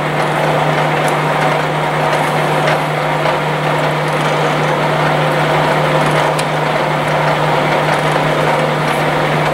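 Blanchard No. 11-16 rotary surface grinder running under power: a steady low machine hum with an even mechanical drone over it that does not change.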